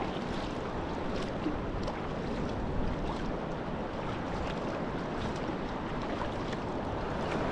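Sea kayak being paddled through choppy sea: a steady wash of small waves against the hull, with light splashes from the paddle blades every second or so. Wind buffets the microphone with a low rumble.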